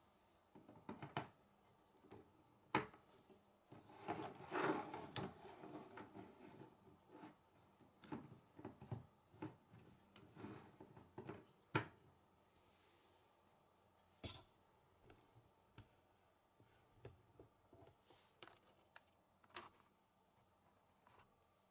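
K'nex plastic rods and connectors clicking and snapping together as the pieces are fitted. Scattered sharp clicks, with a busier stretch of plastic rattling and rubbing about four to six seconds in.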